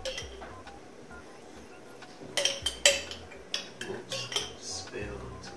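A spoon clinking and scraping against the inside of a tomato sauce jar as sauce is scooped out. A quick cluster of sharp clinks comes about two and a half seconds in, then a few scattered ones.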